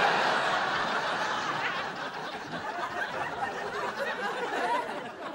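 Sitcom studio audience laughing after a punchline, loudest at the start and slowly dying away.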